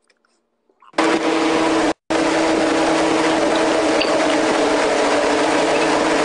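A loud, steady machine-like noise with a hum in it, starting suddenly about a second in and cutting out for an instant near two seconds.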